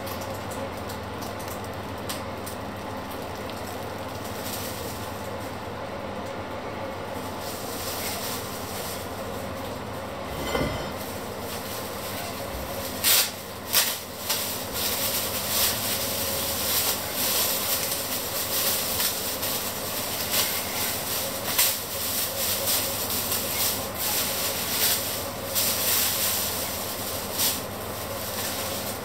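Thin plastic bag crinkling and rustling in irregular bursts from about halfway through as raw meat is handled in it, over a steady hum.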